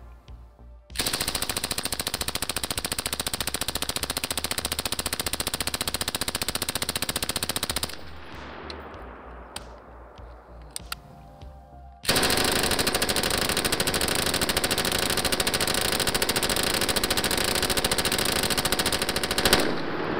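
Belt-fed 5.56 light machine gun firing two long fully automatic bursts of about seven seconds each, a rapid even stream of shots with a Knight's Armament QDC CRS-PRT suppressor on the muzzle. The bursts are separated by a pause of about four seconds holding a few sharp clicks.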